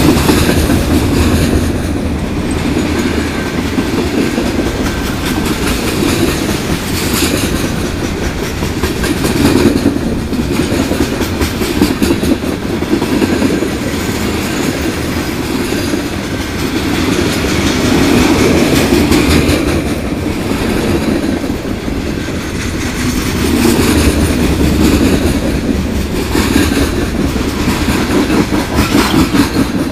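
Freight train cars rolling past close by: a steady rumble of steel wheels on the rails with repeated clickety-clack clicks, swelling and easing in loudness as boxcars and tank cars go by.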